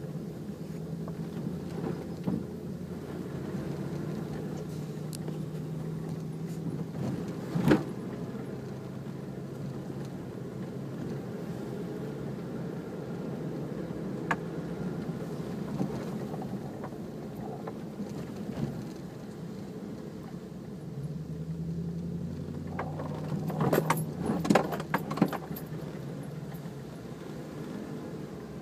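Off-road vehicle engine running steadily while driving over rough ground, with a sharp knock about eight seconds in and a cluster of bangs and rattles near the end.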